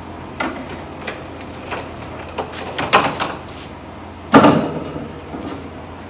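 Knocks and clatter of hands working inside a bare refrigerator compartment, with one loud knock about four seconds in.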